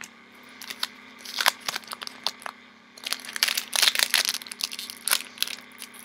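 Foil booster-pack wrapper crinkling and being torn open, in scattered crackles at first and a dense run of crinkling about halfway through.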